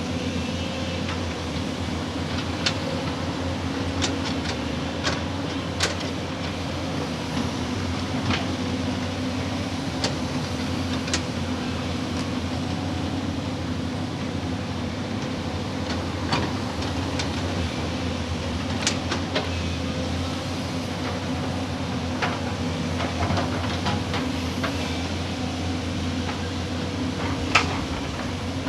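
Excavator's diesel engine running steadily, with short sharp clanks and knocks scattered throughout.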